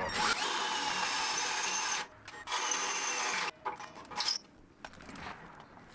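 Cordless drill boring into a travel trailer's frame through a hitch bracket hole, running for about two seconds, stopping briefly, then running again for about a second before it stops.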